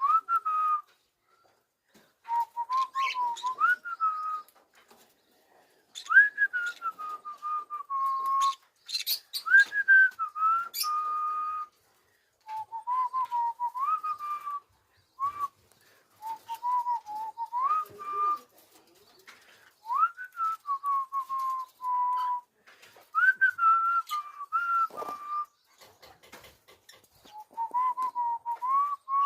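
Pet cockatiel whistling a tune: clear, single-pitched whistled phrases of one to three seconds that slide up and down, broken by short pauses.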